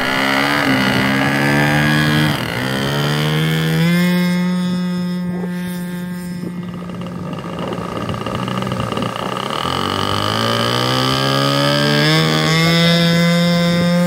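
Small two-stroke glow-fuel model aircraft engine (46-55 size, 10cc) in an RC Tucano, running steadily. Its pitch falls as the throttle comes back, about two seconds in and again near ten seconds, then climbs back up to a steady high note.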